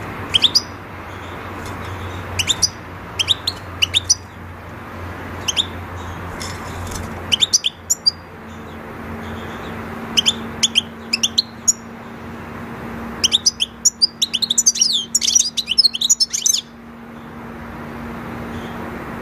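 European goldfinches calling: short, scattered chirps, then a fast burst of twittering about three-quarters of the way through.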